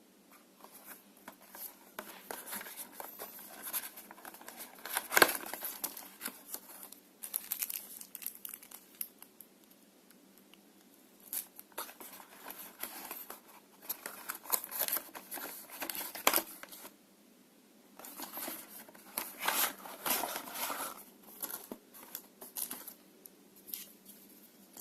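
Fan packaging being opened by hand: irregular crinkling and tearing in several bursts with short pauses between them, and one sharper crack about five seconds in.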